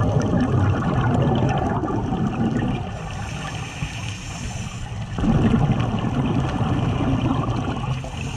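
Scuba regulator exhaust: a diver breathing out underwater, bubbles gurgling past the regulator in two long bursts, the second starting about five seconds in, with quieter stretches as the diver breathes in.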